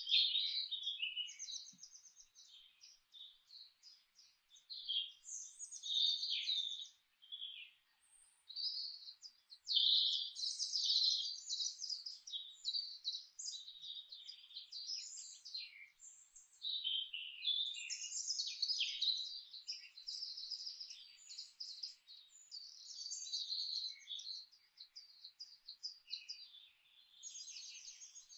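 Songbirds singing: a busy stream of quick chirps and trills, phrase after phrase, with a few short pauses.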